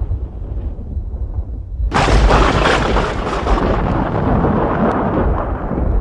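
Thunder: a low rolling rumble dies down, then about two seconds in a sudden sharp thunderclap breaks with a crackle and rolls on as a long rumble that slowly eases.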